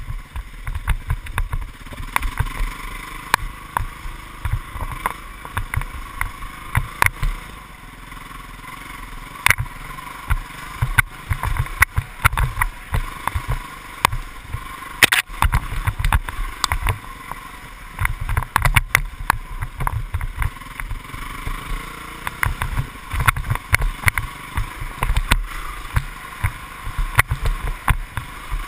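Off-road motorbike running along a rough trail, its engine muffled, with frequent knocks and bumps.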